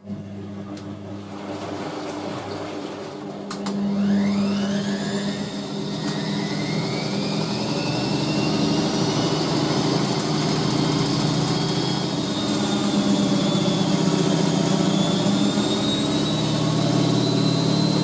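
Front-loading washing machine in its spin cycle, running with a steady hum. About three and a half seconds in the motor spins up: a whine rises quickly and holds high, louder than before.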